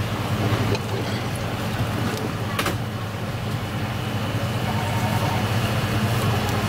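Steady low mechanical hum over a background of noise, with a faint click about two and a half seconds in.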